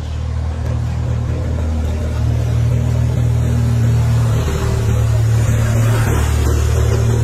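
A low engine rumble that grows louder over the first few seconds and then holds steady.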